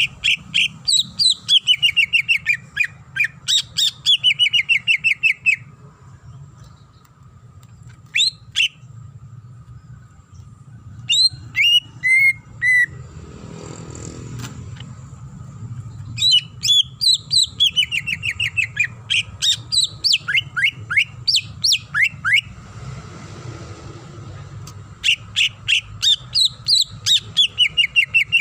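Greater green leafbird (cucak ijo) singing loud, rapid trills of quick notes falling in pitch, in phrases several seconds long broken by short pauses and a few brief calls. A faint steady low hum lies underneath.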